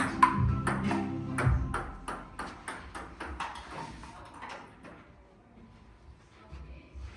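Table tennis ball clicking off paddles and the table in a quick back-and-forth rally, about three hits a second, over background music that fades out in the first couple of seconds. The hits thin out and stop about halfway through.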